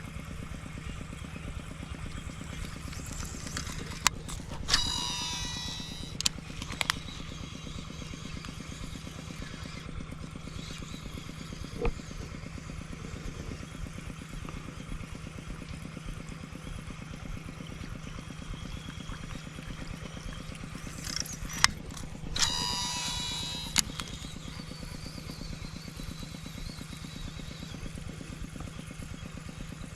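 A fishing reel cast twice: each time a click as the spool is freed, then the spool whirring for about a second and a half as line pays out, then clicks as the reel is engaged again. A steady low engine-like hum runs underneath.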